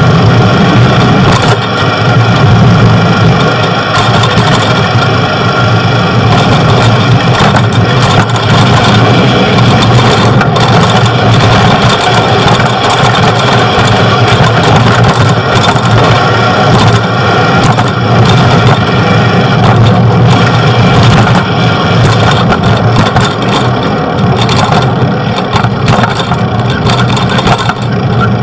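Loud, steady road-traffic and engine noise, with many short clicks and rattles.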